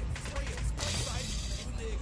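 A short hiss of PB Blaster penetrating oil sprayed from an aerosol can, lasting just under a second, with a few light clicks of tools before it.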